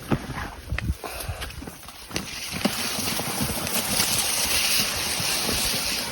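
Footsteps and scattered knocks of someone picking a way along a rough bank, then a rustling hiss that swells from about two seconds in and fades near the end, as of brushing through grass or undergrowth.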